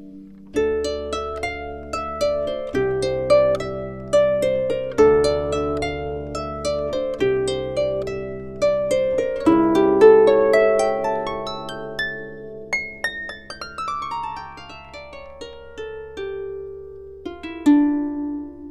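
Instrumental background music: quick plucked-string notes over held bass notes, without singing. The notes are loudest about halfway through and thin out toward the end.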